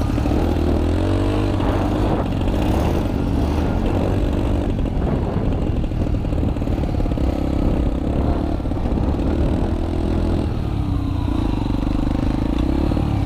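Motorcycle engine running, its pitch rising and falling as the throttle changes.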